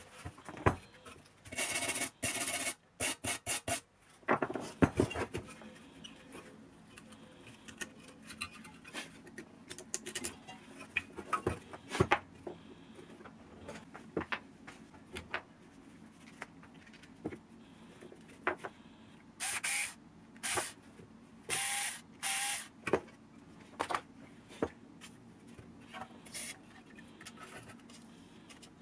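A wire brush scrubbing the rusty steel housing of a car heater blower, in quick strokes near the start. Later come several short hissing bursts of WD-40 spray, with scattered clicks and knocks of tools and metal parts being handled throughout.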